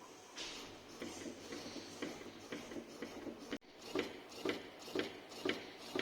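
Motor-driven mechanism of a homemade bag-valve-mask ventilator prototype running and clicking. Light, uneven ticks at first; after a brief dropout about three and a half seconds in, the clicks settle into an even rhythm of about two a second.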